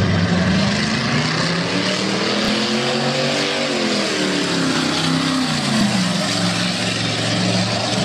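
Pontiac Firebird drag car accelerating hard down the strip. The engine note climbs for about three and a half seconds, then drops back and holds steady as the car pulls away.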